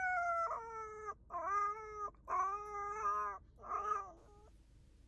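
Puppy howling in long, tuneful notes, like singing opera: four drawn-out howls, the first sliding down in pitch and the next ones held steadier and lower, the last one short.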